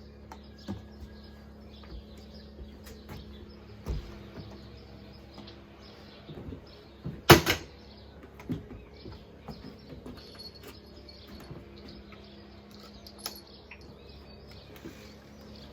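Scattered small knocks and clicks of things being handled, with one loud sharp knock about seven seconds in, over a faint steady hum.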